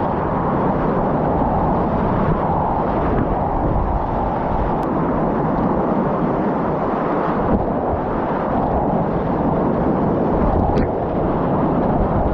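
Whitewater rapids of a river at high flow (about 130 m³/s) rushing steadily as a loud, unbroken roar.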